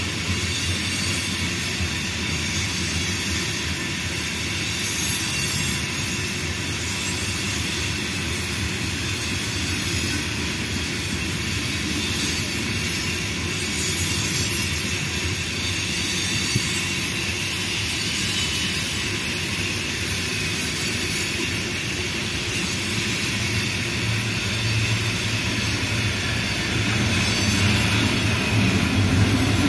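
Freight train of covered hopper cars rolling past at close range: a steady rumble of steel wheels on the rails with a high squeal from the wheels. Over the last several seconds the low drone of approaching diesel locomotives grows in.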